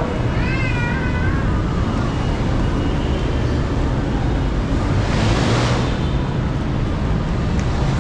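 Steady low rumble of city street traffic, with a brief wavering high-pitched tone about half a second in and a rushing hiss that swells and fades around five seconds in.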